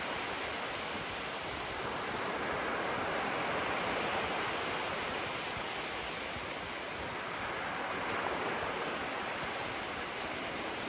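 Small waves washing onto the shore in a steady hiss of surf that swells gently and eases off without any sharp breaks.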